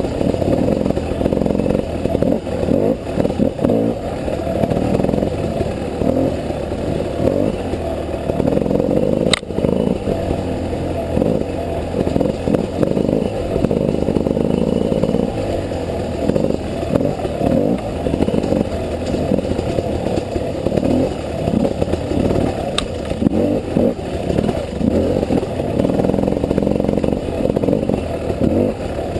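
GasGas EC300 two-stroke enduro motorcycle engine running with constantly changing throttle as it is ridden off-road. Two sharp knocks stand out, one about nine seconds in and one near twenty-three seconds.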